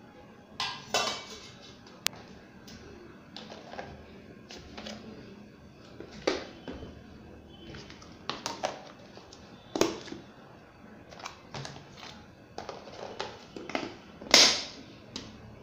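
Food storage containers being handled on a table: a steel container and plastic boxes with lids knocking and clicking in scattered taps, the loudest knock near the end.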